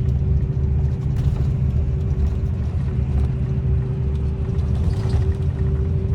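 Steady low rumble of a motor vehicle with a constant droning hum above it.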